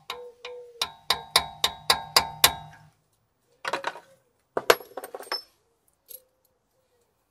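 A hammer strikes a steel punch against a BMW rear brake caliper to drive out its rusted-in brake pad retaining pin: about eight quick ringing metal blows, about four a second. Then a few metallic clinks and rattles as tools are handled.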